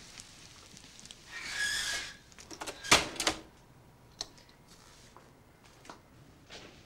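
Kitchen handling sounds around a burnt dish: a short hiss, then one sharp clattering knock about three seconds in, with a few fainter clicks after it.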